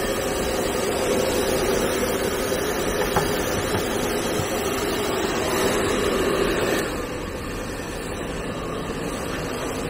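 Handheld hair dryer blowing steadily with a motor hum, turning a little quieter about seven seconds in.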